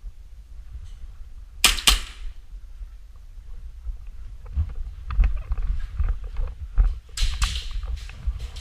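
Airsoft pistol shots: two sharp snaps in quick succession early on, then scattered clicks and a further quick run of shots near the end, over a steady low rumble.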